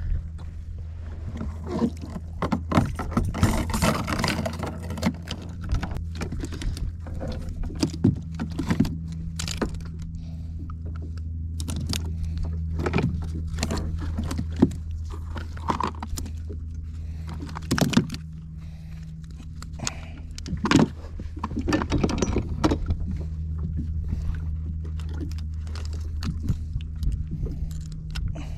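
Metal clinking and knocking as a wire fish stringer and its clips are handled and fish are clipped onto it, with scattered sharp knocks. A steady low hum runs underneath.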